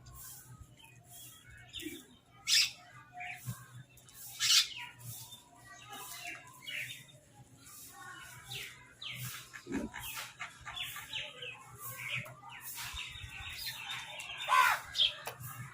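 Birds chirping and calling over one another in short, scattered notes. There are sharper loud calls about two and a half and four and a half seconds in, and a falling call near the end.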